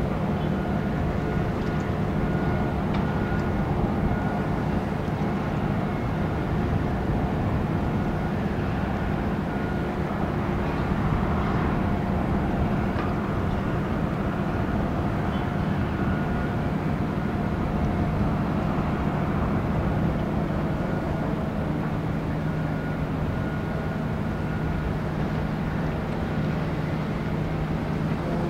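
Steady drone of a boat engine, a low hum with a few constant higher tones, over a rumble of wind and water noise.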